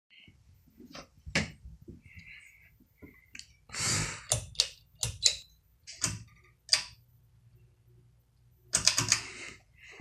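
Sharp clicks of a Harbor Breeze Lansing ceiling fan's pull-chain switches being pulled, with the chain rattling, ending in a quick cluster of clicks. A faint low hum from the fan motor comes in during the second half as the blades start to turn.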